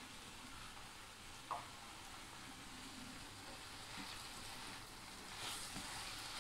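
Faint sizzling of sliced ivy gourd frying in oil in a steel kadai, with a spatula stirring and scraping through it in the second half.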